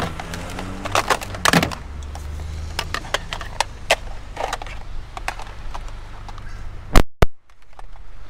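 Clicks, knocks and clatter of hard discarded electronics such as old modems and computer parts being handled and moved in a scrap pile. A steady low engine hum runs underneath for the first few seconds. Near the end a loud knock is followed by a brief cut-out of the sound.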